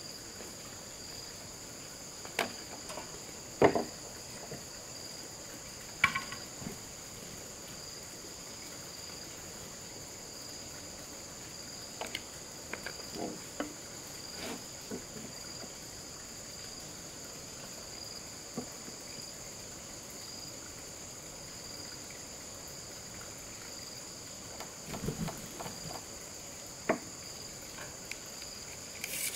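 Insects, crickets or similar, chirring in a steady high-pitched chorus, with scattered sharp knocks and taps, a few close together around two thirds of the way in and near the end.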